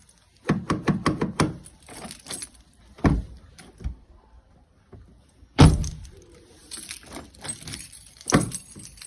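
Keys jangling and a VW-group car door lock, with its newly fitted key barrel, clicking and knocking as it is worked. A quick run of clicks comes in the first second and a half. Single knocks follow about three, five and a half and eight seconds in, the one at five and a half seconds the loudest.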